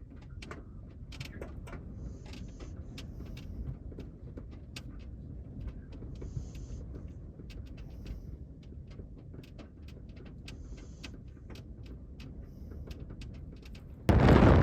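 Strong wind blowing, a low steady rumble scattered with many small ticks and rattles. About fourteen seconds in, it jumps to loud wind blasting straight onto the microphone.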